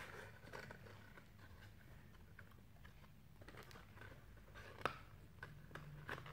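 Faint handling of a small cardboard toy box being opened: soft scattered taps and clicks, with a sharper click about five seconds in and another near the end.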